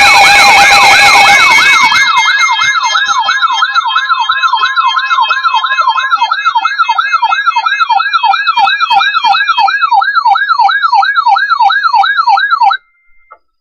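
Weather radio alert alarms sounding for a severe thunderstorm warning: a siren-like rising and falling sweep repeats about two to three times a second, with a steady tone beneath it for the first several seconds and a hiss of static at the start. The alarms cut off abruptly near the end.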